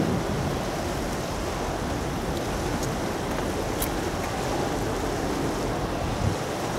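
Steady wind buffeting the microphone over a continuous wash of sea water.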